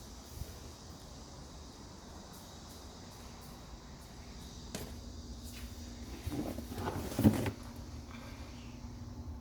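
A few knocks and a clatter over a low steady rumble, the loudest a sharp clack about seven seconds in.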